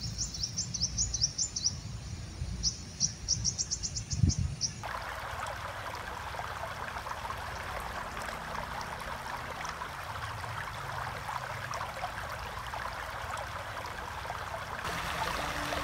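Rapid runs of short, high chirps from small birds over a low rumble. After a cut about five seconds in, these give way to the steady rush of a shallow stream running over rocks.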